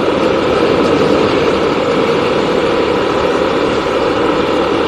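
Engine of a moving road vehicle running steadily, with a constant rush of road noise.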